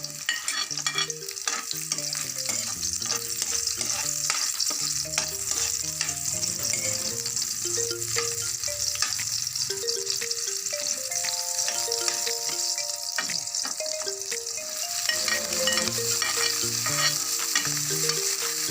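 Garlic and onion sizzling in hot oil in a frying pan, stirred with a spatula that scrapes and clicks against the pan many times.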